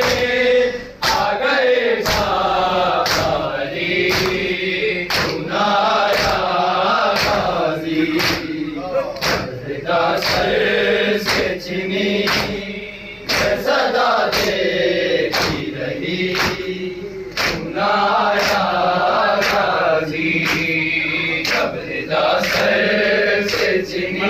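A group of men chanting a mourning nauha in unison, led by one voice, with rhythmic matam: open palms striking chests in unison, a little over one stroke a second.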